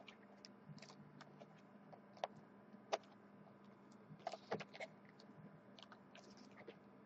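Faint crinkling of plastic wrap with light clicks and taps as a sealed trading-card box is handled and unwrapped, a few sharper ticks scattered through.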